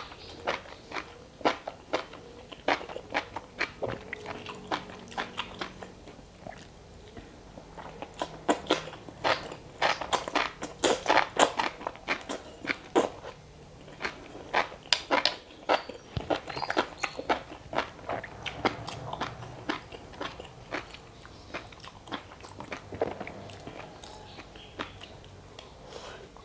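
Close-miked mukbang eating sounds of enoki mushrooms in mala sauce and green mussels: wet chewing, lip smacks and crisp bites in quick, uneven runs of sharp clicks, busiest in the middle.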